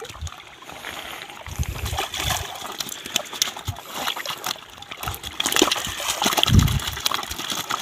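Water splashing and sloshing in the shallows as a keepnet full of live small bream is handled, the fish stirring in the net. The splashing gets busier and louder about two-thirds of the way in.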